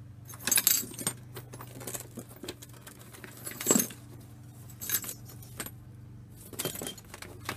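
Hard ceramic pieces and kiln furniture clinking and clattering in several short bursts as they are handled while loading a kiln.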